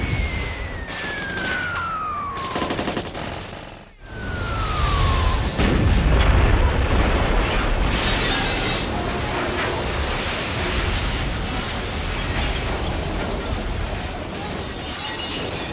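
Film sound effects of naval gunfire: two descending shell whistles, the second followed about five seconds in by a large explosion and a long rumble of fire and falling debris. A film score plays underneath.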